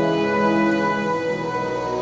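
Slow instrumental music with long held notes; the chord changes about two-thirds of the way through.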